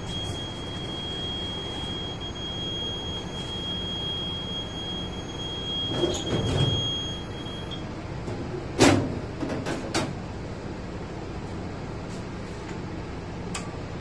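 Steady drone of running power-plant machinery with a high whine that stops about eight seconds in; a sharp knock about nine seconds in, then a few lighter clicks.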